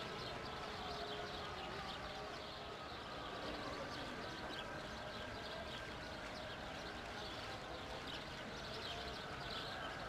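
Outdoor ambience of many small birds chirping and twittering without a break, over a steady low background rumble.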